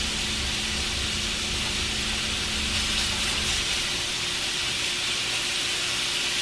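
Cubes of raw steak sizzling steadily in hot oil in a frying pan, with a spatula stirring the pieces.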